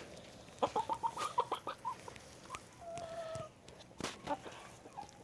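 Chickens clucking: a quick run of short clucks, then a longer drawn-out note about three seconds in, with a single sharp click a second later.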